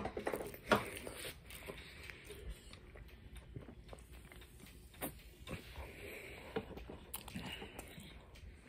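Faint chewing and mouth sounds of someone eating a soft white-bread sandwich, with a drink from a can about halfway through. Scattered soft clicks throughout.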